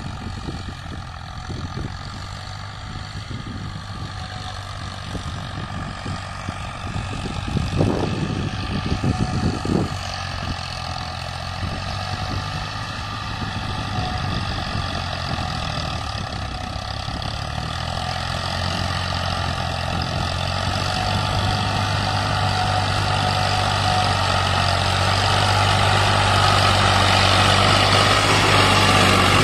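Farmtrac 65 EPI tractor's diesel engine pulling an 11-tine cultivator through dry soil in second high gear at about 1600 rpm. It is a steady low drone that grows louder as the tractor comes closer, with two brief thumps about eight and ten seconds in.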